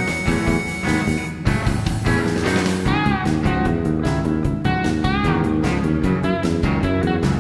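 Background instrumental music with a steady beat, with a few notes that bend up and back down in the middle.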